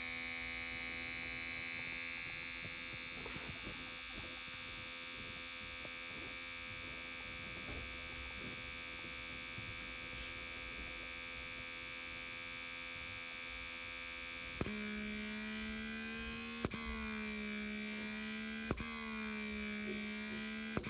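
Electric suction pump of a Revomadic smart cupping cup running with a steady hum. About two-thirds of the way through it drops to a lower hum and switches to its pulsing 'breathing' mode: a click about every two seconds, the hum dipping and recovering each time as the cup lets in a little pocket of air.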